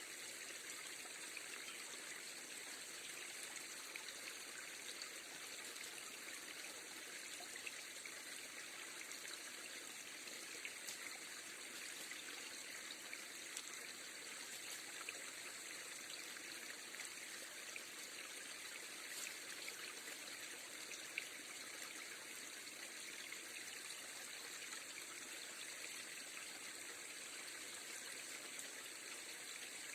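River water flowing steadily, with faint steady high-pitched tones above it and a single small tick about two-thirds of the way through.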